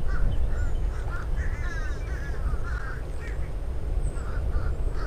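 Birds calling over and over in a run of short, harsh calls, with wind rumbling on the microphone underneath.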